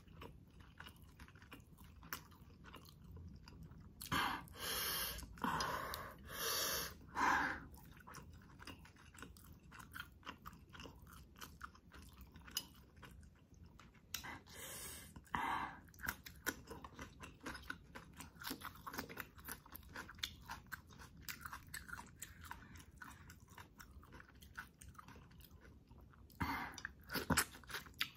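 Close-miked eating of chicken adobo by hand: steady wet chewing and mouth clicks, with louder crunchy bites around four to seven seconds in, about fifteen seconds in, and near the end.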